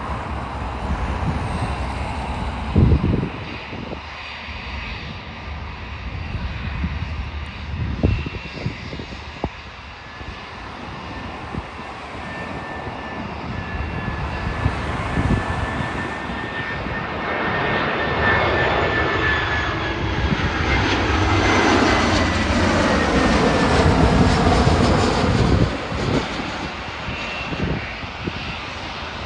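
Airbus A320-214's CFM56 turbofan engines on final approach. A steady jet rumble builds to a peak as the aircraft passes close, about twenty seconds in, with a thin high whine falling slowly in pitch, then eases off. A few low thumps come in the first seconds.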